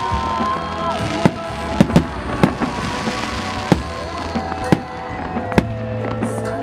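Aerial fireworks bursting overhead: about ten sharp bangs at uneven intervals, one or two a second. Music with long held and gliding notes plays underneath.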